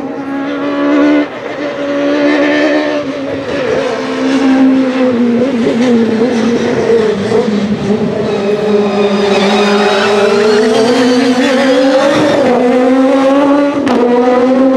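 Peugeot 306 Maxi rally car's high-revving 2.0-litre XU10J4RS inline-four working hard, its pitch sinking and then climbing as the car slows and accelerates again, with a brief sharp dip about twelve seconds in.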